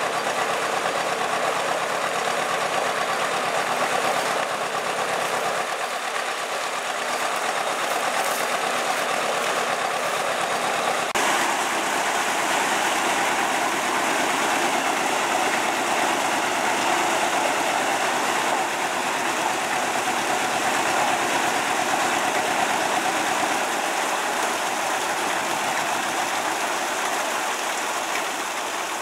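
Diesel engine of a historic working narrowboat running steadily at low revs, with an even thudding beat.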